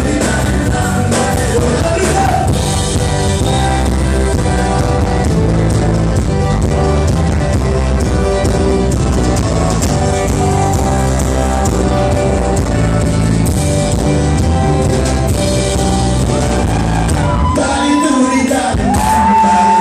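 Live folk-rock band playing: accordion, acoustic guitars, bass guitar and drums. Near the end the bass and drums drop out and a voice holds one long high note that bends down at its close.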